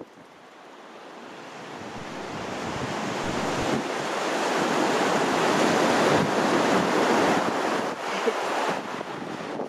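Surf breaking on a sandy beach, swelling from quiet to its loudest a little past the middle and easing near the end, with wind buffeting the microphone.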